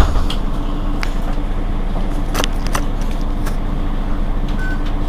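Mercedes-Benz Citaro G C2 articulated bus idling at a stop: a steady low engine hum, with a thump at the start and a few sharp clicks and knocks over it.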